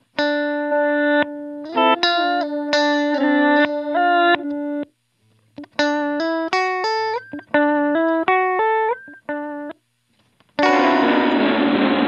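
Clean electric guitar notes run through a Chase Bliss Mood pedal's glitch effects, coming back chopped into short, stuttering repeats. A phrase of stepping notes ending in an upward slide is heard twice. Near the end a dense, washy chord swells in and holds.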